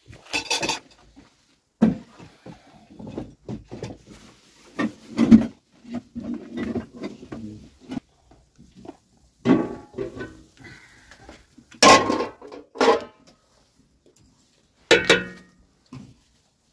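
Metal cooking pots and lids being handled, with a series of separate clanks and knocks, a few of them ringing briefly.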